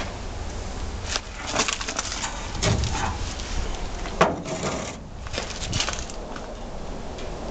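Irregular crunching and cracking of debris and old wood, a string of sharp clicks and snaps with one louder crack about four seconds in.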